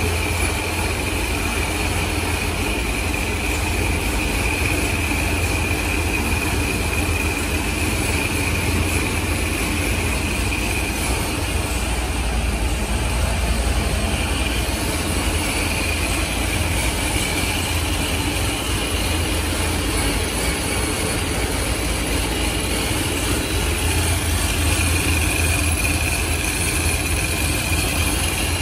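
Supercharged 427-cubic-inch LS V8 (Dart LS Next block, ProCharger F1X centrifugal supercharger) idling steadily. It has a deep, even low end and a high whine over it that swells and fades.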